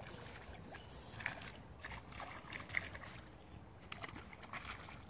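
Faint, irregular water splashing and sloshing from a hooked tarpon thrashing at the surface close to the bank.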